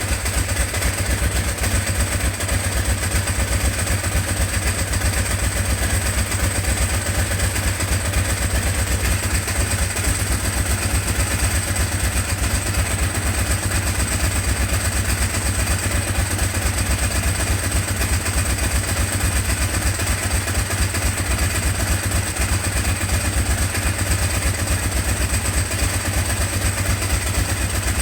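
Ducati 749's L-twin engine running at a steady idle, with an even low pulsing.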